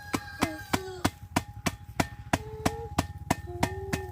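Knife chopping on a board in a steady rhythm, about three strokes a second, with a steady high-pitched tone and shorter, lower gliding tones sounding over it.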